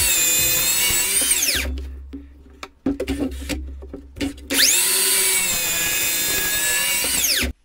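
DeWalt XR brushless cordless sliding mitre saw cutting timber wedges. The motor whines up to speed, runs steady through a cut and winds down after about a second and a half. After a few knocks of wood being set on the saw table, it spins up again for a second, longer cut that cuts off suddenly near the end.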